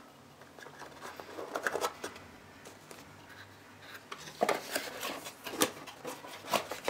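Small clicks, taps and rustles of things being handled on a desk, sparse at first and more frequent and louder in the second half, over a faint low hum.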